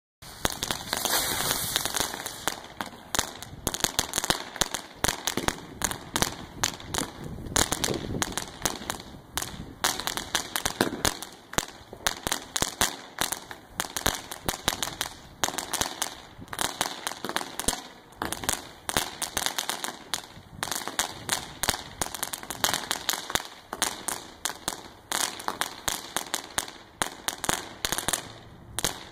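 Consumer fireworks going off: a continuous, dense crackle of rapid pops and sharp bangs, with a hissing spray about a second in. The sources are a ground fountain throwing sparks and a repeater shooting coloured stars.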